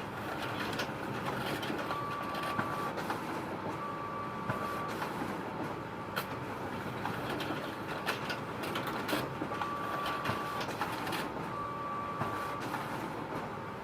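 Photocopier running with a steady mechanical hum and scattered sharp clicks. A short steady tone sounds four times, each about a second long.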